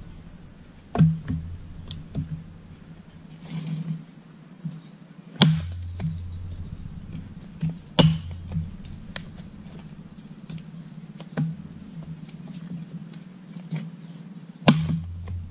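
Axe splitting dried ipil-ipil firewood: five loud, sharp strikes every few seconds, with lighter knocks between them.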